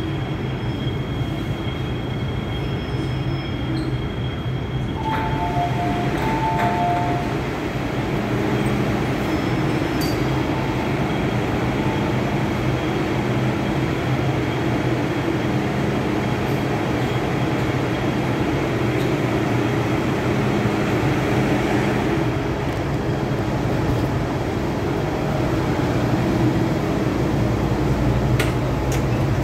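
MTR M-Train electric multiple unit slowing into an underground platform, its hum and rail noise steady throughout. About five seconds in, a two-tone chime sounds twice, in step with the doors opening. The running hum of the train's equipment goes on while it stands and as it carries on from the platform.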